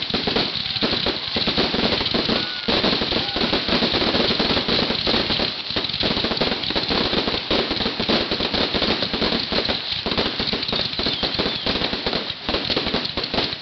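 Fireworks crackling: a dense, continuous rattle of small rapid pops with no real break.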